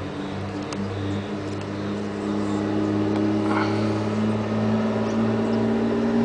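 A steady low machine hum made of several pitched tones, growing a little louder a couple of seconds in, with a few faint clicks and taps as a lens adapter tube is handled on the camera.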